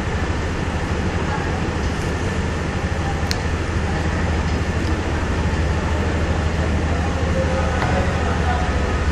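Steady low rumbling noise throughout, with a few faint clicks.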